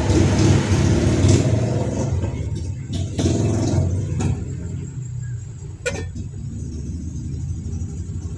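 An engine running close by, a steady low rumble that is loudest over the first four seconds and then eases off. A few sharp clicks sound over it, the loudest about six seconds in.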